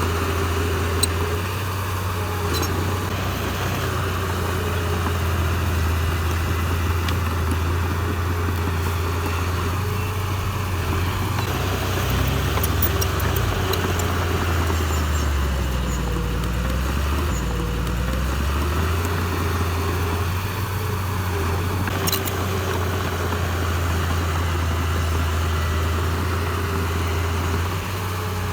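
Heavy-equipment diesel engine running steadily with a deep hum. About halfway through its pitch drops for a couple of seconds, then picks back up.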